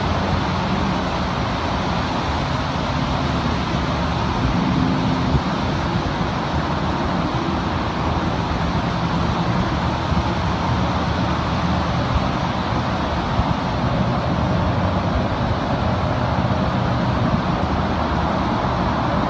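Steady vehicle noise: a low engine hum under constant rushing noise, with no marked change.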